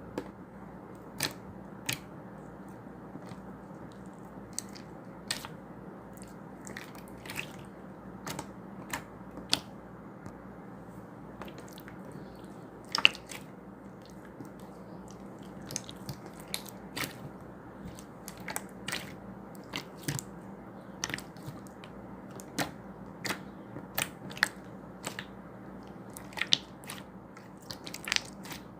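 Clear slime being pressed and squished by hand, giving sharp sticky clicks and pops at irregular intervals, about one or two a second, with one louder pop about halfway through.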